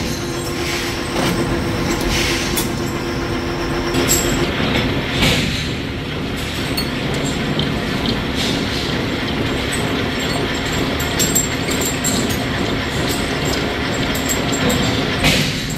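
Gear hobbing machine running steadily as its hob cutter cuts teeth into the steel blank of a motorcycle front chain sprocket, with a few sharp ticks along the way.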